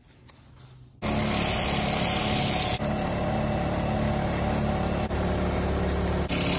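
Bench grinder running with a wire wheel while a steel bolt held in locking pliers is pressed against the bristles to scour its threads: a steady motor hum under a harsh, hissing scrub. It starts abruptly about a second in, with two short dips as the work is shifted on the wheel.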